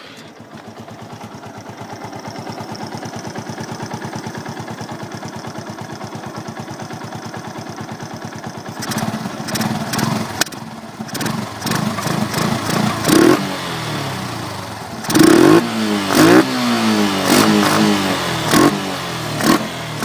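TVS Sport motorcycle's single-cylinder four-stroke engine, breathing through a K&N-style open cone air filter, idling steadily. From about nine seconds in it is revved in a series of short throttle blips, each rising and falling.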